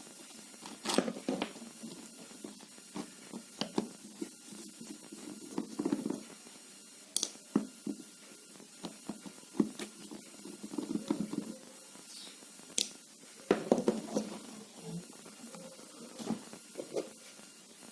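Scattered light clicks, taps and scratching of hand work on an immersion water-heater rod's terminal end as it is opened to change its power cord.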